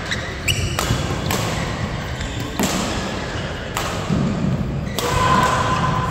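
Badminton rally: rackets striking the shuttlecock about once a second, five sharp hits, with court shoes squeaking on the floor, one longer squeak near the end.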